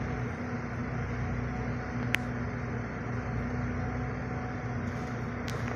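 Cabin noise of a double-decker bus under way, heard from the upper deck: the engine drones steadily with a low hum. Two sharp clicks cut through, about two seconds in and near the end.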